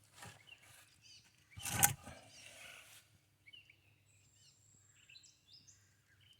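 A brief loud rustling scrape close to the microphone about two seconds in, then small birds chirping, with one long high whistle, in the background.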